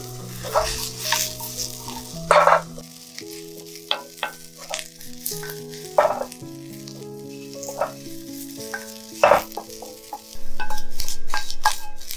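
Sliced onion sizzling in a black steel frying pan while a wooden spatula stirs and scrapes it in repeated strokes, the onion being fried until it colours. The sizzle gets louder and steadier from about ten seconds in.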